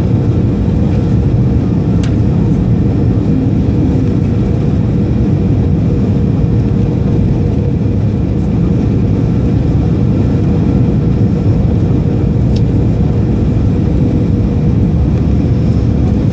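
Steady cabin noise of a Boeing 737-300 on final approach, heard from a window seat: the CFM56 turbofans and rushing airflow make a heavy low rumble with a thin steady hum above it.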